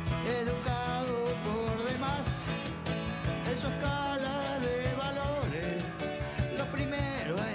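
Live band playing a rock song: electric guitar and a steady beat, with a bending melody line over the top.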